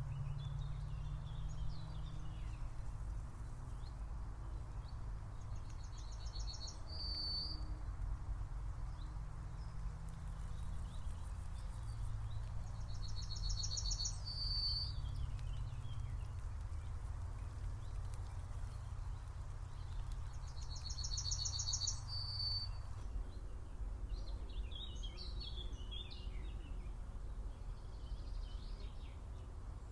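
A songbird singing the same short phrase about every seven seconds, a fast high trill ending in a few bright notes, with other birds chirping near the end. A steady low rumble runs underneath.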